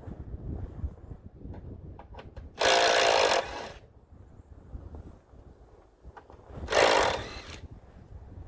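Impact wrench hammering on a sway bar bolt in two bursts of about a second each, a few seconds apart, with a few light clicks of tool handling in between.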